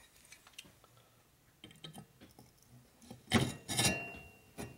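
Metal parts of a shovelhead cylinder head and rocker box being handled: scattered light clicks, a louder clatter of knocks about three and a half seconds in, and one sharp knock near the end.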